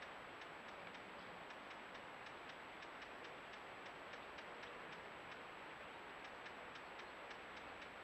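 Faint steady hiss from a trail camera's own recording, with evenly spaced soft ticks about four or five a second and a thin steady high whine: the camera's electronic self-noise, with no bird call.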